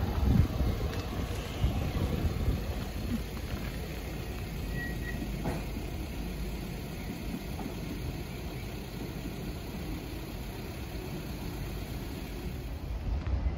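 Low, steady rumble of road traffic mixed with wind on the microphone, with a brief high tone about five seconds in.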